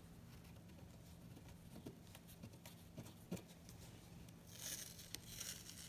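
Quiet handling of a cotton tea towel and its silkscreen transfer: a few faint ticks, then a soft rustle near the end as the cloth is lifted. A low steady hum runs underneath.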